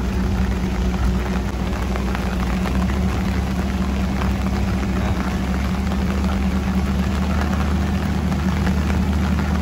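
Steady rain falling, as an even hiss, over a constant low mechanical hum like an idling engine.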